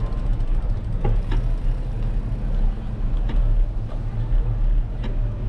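Steady low rumble of wind and road vibration on a GoPro camera riding on a moving bicycle, with a few faint clicks.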